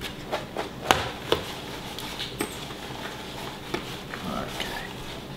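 Hands tossing olive-oil-coated kale leaves in a plastic bowl: the leaves rustle and squelch, with a few sharp taps and knocks of hands and bowl. The loudest knock comes about a second in.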